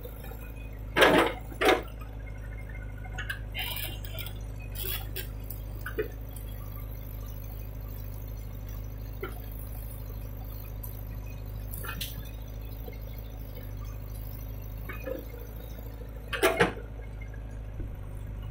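JCB 3DX backhoe loader's diesel engine running steadily at work while the backhoe digs soil and dumps it into a tractor trolley. A few sharp clanks and knocks stand out, loudest about a second in and again near the end.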